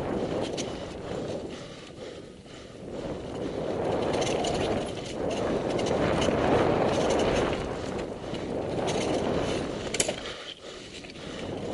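Mountain bike ridden fast down an enduro trail: a rushing noise of wind and tyres that swells and fades with speed, with the bike rattling and clicking over the ground and a sharp knock about ten seconds in.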